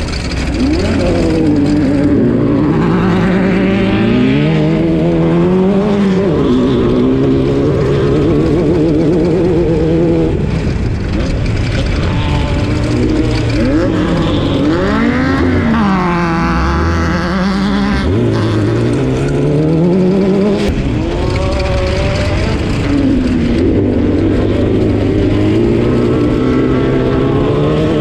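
Class 12 off-road race car's engine running hard at race pace, its pitch rising and falling repeatedly as it revs up and drops back, over a constant rumble and rattle.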